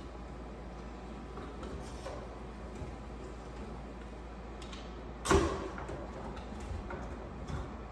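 Faint scattered clicks of handling, with one sharp knock about five seconds in, over a steady low hum.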